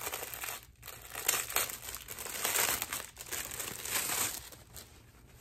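Gift wrapping crinkling and rustling in irregular bursts as a wrapped gift is opened by hand, dying down near the end.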